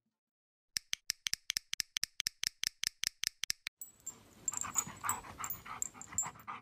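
A dog eating from a glass bowl: a quick, even run of clicks, about six or seven a second, for about three seconds, then a rougher, noisier stretch with scattered clicks.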